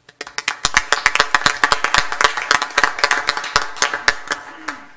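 A small roomful of people applauding: quick, dense hand claps that start at once, thin out and fade near the end.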